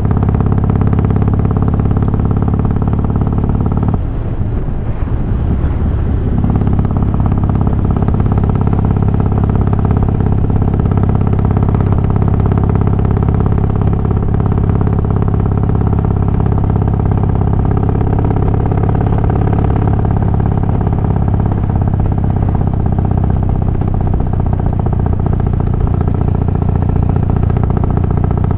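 Harley-Davidson Twin Cam 88 V-twin, fitted with Feuling 525 cams and hydraulic cam chain tensioners, running at a steady speed. About four seconds in the sound briefly wavers and dips, then settles back to the same even running.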